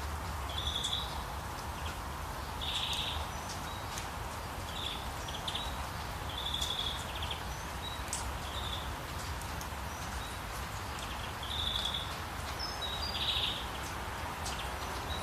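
Steady rush of flowing water, with birds giving short, high, buzzy calls every second or two over it.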